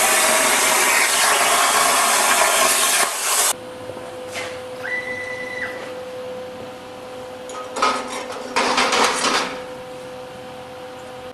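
Langmuir CNC plasma table's torch cutting steel plate: a loud, steady hiss that stops abruptly about three and a half seconds in. After it, a faint steady hum, a brief high whine about five seconds in, and two short bursts of rattling later on.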